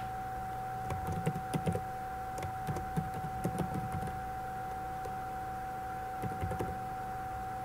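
Typing on a computer keyboard: a quick run of keystrokes for about three seconds, then a few more keys near the end, over a steady whine and hiss in the recording.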